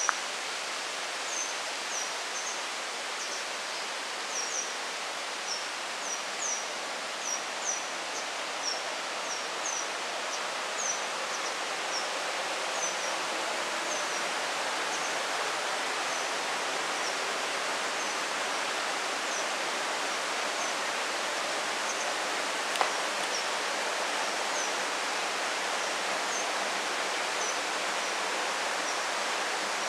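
Forest ambience: a steady rushing noise with a bird giving short, high, falling chirps, about two a second at first, thinning out after about fifteen seconds. A single sharp click comes a little past the middle.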